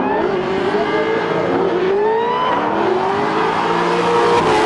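Two drift cars sliding in tandem, their engines revving with pitch rising and falling over each other, over the hiss and squeal of spinning tyres.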